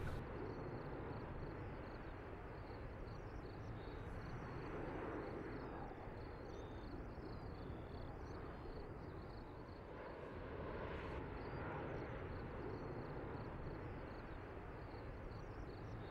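Steady rushing background noise with faint, scattered high chirps above it.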